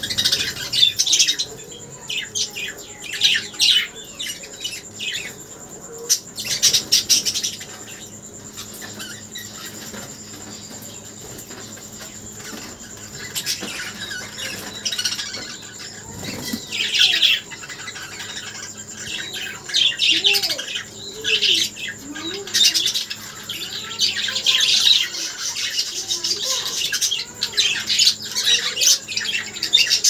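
Budgerigars chattering: short, scratchy chirps and squawks come in quick bursts every second or so, thin out for a few seconds near the middle, then grow denser again.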